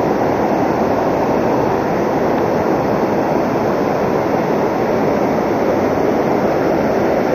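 Fast, shallow river rushing over a boulder riffle: a steady, unbroken roar of rapids close by.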